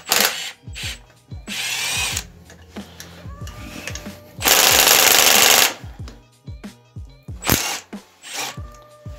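Cordless drill with a socket spinning out the 8 mm bolts that hold the starter motor on an Italika ATV150 engine. There is a short run about one and a half seconds in and a longer, louder run of about a second near the middle, with clicks and knocks of the tool and metal parts in between.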